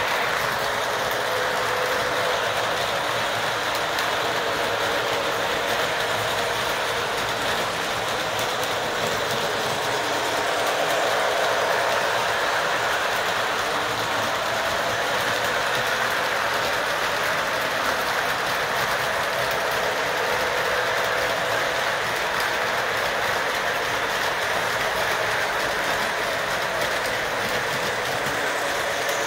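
Model train running on the layout's track: a steady whirring and rolling of the locomotive motor and wheels on the rails.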